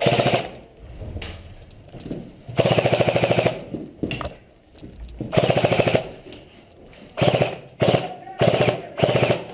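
Airsoft rifle firing on full-auto in a string of short bursts of rapid, even shots, the longest lasting about a second.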